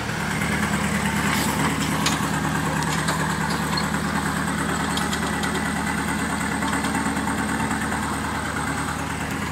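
Suzuki Samurai off-road truck's engine running steadily at low revs as it crawls over rocks.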